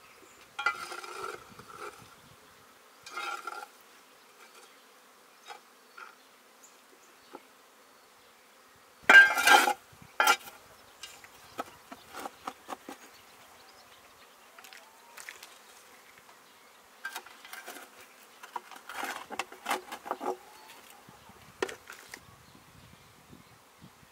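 Insects buzzing, with short bursts of clattering and handling noise now and then, the loudest about nine seconds in.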